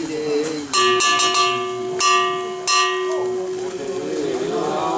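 A metal bell struck three times, about a second in, at two seconds and near three seconds, each stroke ringing on and dying away. From about three and a half seconds in, a group of men's voices chant a nenbutsu song.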